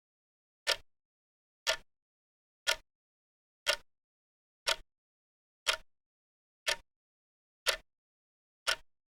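Clock ticking steadily, one sharp tick per second with silence between the ticks, nine ticks in all.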